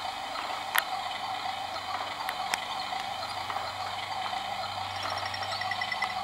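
Swing mechanism running with a steady hum and mechanical ticking, with a few sharp clicks, the loudest under a second in, and a quick run of ticks near the end.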